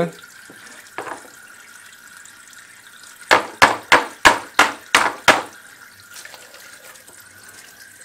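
Small washing-machine inlet filter screen dunked and swished in a basin of water: about seven quick splashes in a row around the middle, with a single light click about a second in.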